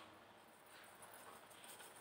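Near silence, with only faint small handling sounds.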